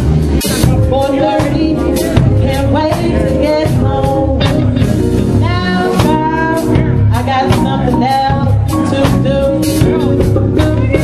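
Live soul band playing with drum kit, bass and keyboards on a steady beat, with a wavering lead melody over them.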